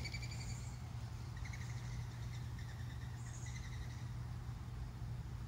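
A bird giving about five short, buzzy calls over the first four seconds, over a steady low hum.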